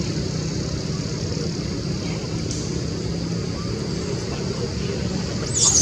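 Steady low hum with a high hiss. About five and a half seconds in, a loud, high-pitched squealing cry with wavering pitch starts: a young long-tailed macaque screaming.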